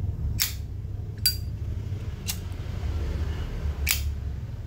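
Vintage steel-cased Zippo lighter being handled, giving four short, sharp metallic clicks spread over a few seconds.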